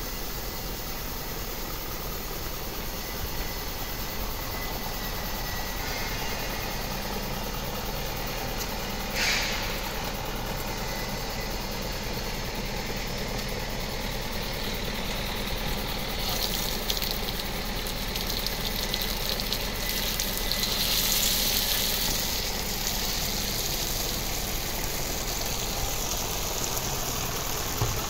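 Isuzu water tanker truck's diesel engine idling steadily. A short hiss comes about nine seconds in, and further stretches of hiss come in the second half.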